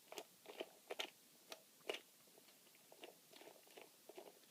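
Faint, irregular small clicks and crackles of plastic parts of a solar shed light being handled, as a plastic fitting is taken off the unit.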